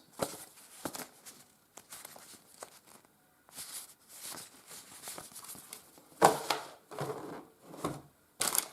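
Paper user manuals and leaflets being handled, rustling and crinkling in short scattered bursts, loudest about six seconds in.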